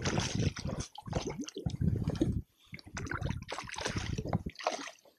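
A rainbow trout of about two pounds thrashing in a landing net at the water's surface beside the boat, splashing in irregular bursts that die away near the end.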